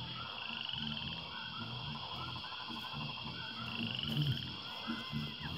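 Steady high-pitched chorus of calling animals, with two short rising trills, about half a second in and again near four seconds, and a faint low murmur underneath.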